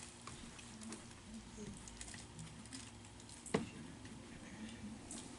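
Soft rustling of hymnbook pages being turned, with scattered small clicks and one sharp knock about three and a half seconds in.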